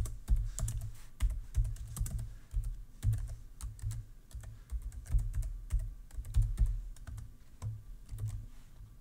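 Rapid, irregular typing on a computer keyboard, each keystroke a sharp click with a dull thud; it thins out and fades near the end.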